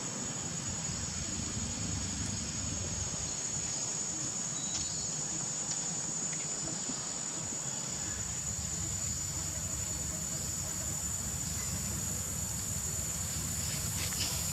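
A steady, high-pitched chorus of insects droning without a break, over a low rumble, with a few faint clicks.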